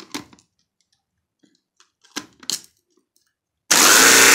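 A few light clicks and knocks, then near the end an electric kitchen blender switches on suddenly and runs loud and steady, blending sugar into water to dissolve it.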